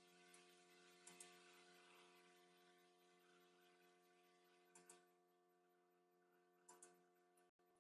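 Near silence: a faint steady electrical hum, with a few faint clicks.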